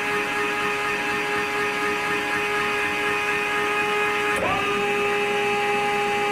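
Electric drive motor of a Ladies First automatic chicken coop door running with a steady whine as the door reopens part way during its close cycle. The door reopens partly so that a hen stuck in the doorway can get in. About four seconds in there is a click, and the whine goes on slightly higher in pitch.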